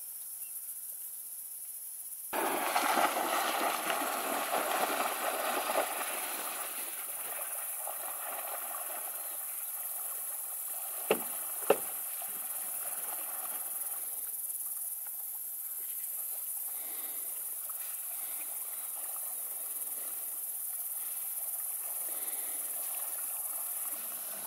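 Black Labrador retriever going into the marsh water with a sudden splash about two seconds in, then swimming out, its splashing settling into a quieter steady wash. Two sharp cracks about half a second apart come midway, over a steady high insect hiss.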